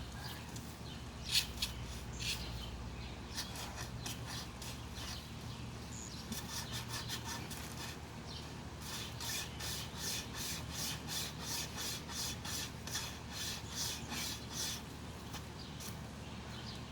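Braided-wire survival saw rasping back and forth through a tree branch. Strokes come slowly and unevenly at first, then settle into a steady rhythm of about two a second before stopping shortly before the end.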